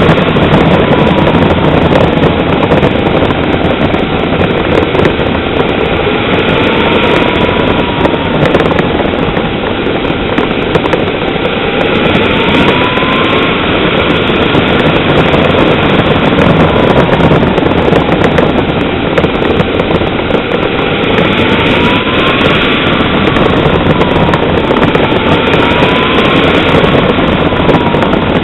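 Radio-controlled model Tornado jet in flight: a steady, loud rushing engine noise with a whine near 1 kHz that slowly rises and falls in pitch several times as the jet passes back and forth.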